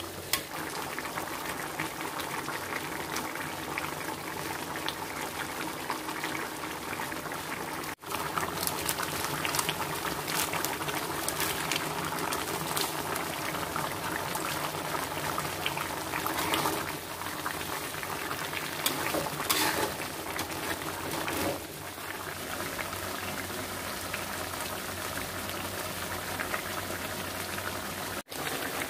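Chicken feet simmering in a thick spicy sauce in an aluminium wok, the sauce bubbling and hissing steadily. A metal spatula now and then scrapes and knocks against the pan, mostly in the middle of the stretch.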